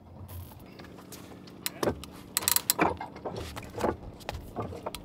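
Sailboat rigging hardware knocking and clicking as a stay is worked into place: a run of irregular sharp clicks and clanks, loudest in a cluster around the middle, over a steady low hum.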